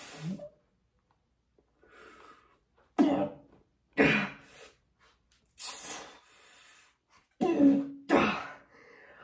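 A man's short, forceful bursts of breath and grunts, about five in quick succession starting about three seconds in, as he strains through one-arm overhead dumbbell tricep extensions.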